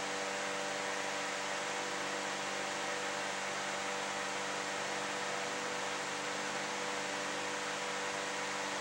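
Steady hiss with a low, constant hum under it and nothing else happening: the room tone of a quiet, dark room.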